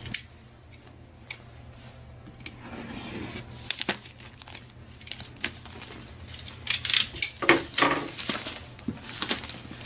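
A box cutter scrapes and clicks as it slits the plastic shrink wrap on a cardboard box. From about seven seconds in, the shrink wrap crinkles and tears loudly as it is pulled off.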